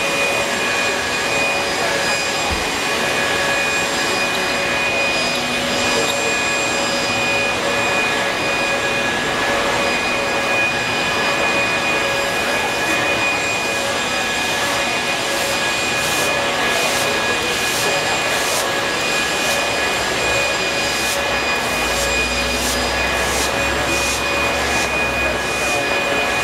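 Leaf blower running steadily at one constant pitch with a fixed whine, blowing rainwater off wet asphalt.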